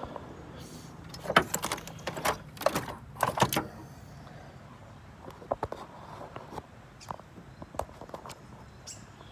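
Metal clinking and rattling from hand tools and engine parts being handled, in a busy cluster about a second in and another around three seconds in, then scattered light clicks.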